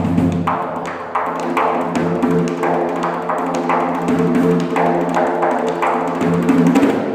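Large frame drum played with the hands: a fast, steady stream of finger and palm strokes over the drum's deep, sustained ringing tone.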